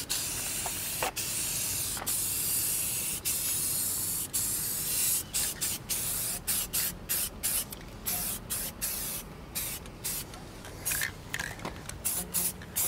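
Aerosol spray paint can spraying black paint. A long, nearly continuous hiss for about five seconds, then a quick run of short sprays, two or three a second.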